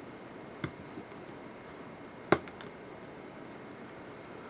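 A few small, sharp clicks of steel rifle parts being handled as the clip-release spring is pressed into the AR-7's receiver slot, the sharpest a little over two seconds in.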